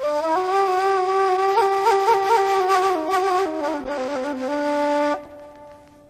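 A solo flute plays an ornamented melody, with quick upward flicks on its held notes. The line steps down to a low held note that breaks off about five seconds in.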